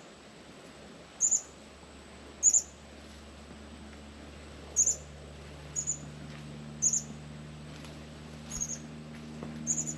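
Northern cardinals giving sharp, high chip calls, one note every second or two, about nine in all. A faint low hum sets in underneath about halfway through.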